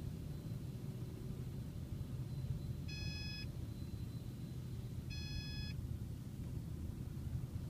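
Steady low rumble of touchless car wash equipment heard from inside the car. Two short electronic beeps sound about three and five seconds in.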